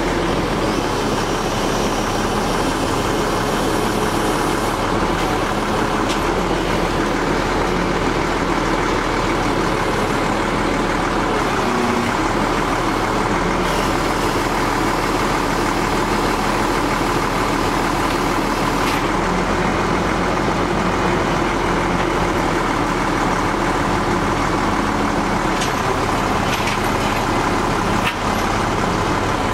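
Caterpillar 3306 inline-six turbo diesel engine in a Ford LT9513 crane truck running at a steady, constant speed. A few faint clicks come near the end.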